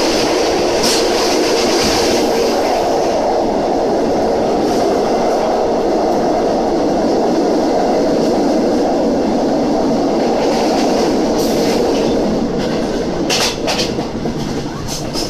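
Passenger train coaches running at speed, heard from a carriage window: a steady rumble of steel wheels on the rails. Near the end, a few sharp clacks, typical of wheels passing rail joints.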